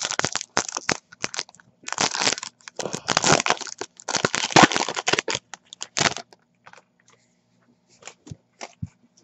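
Foil wrapper of an Upper Deck hockey card pack being torn open and crinkled in a run of crackly bursts, dying away to a few light clicks about six seconds in.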